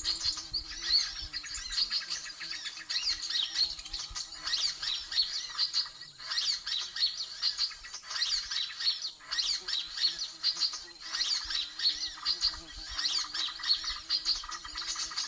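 Dense, unbroken chirping and twittering of many small birds, the 'suara ribut' (rowdy chorus) lure call used to draw in birds for trapping. A faint wavering low hum runs underneath.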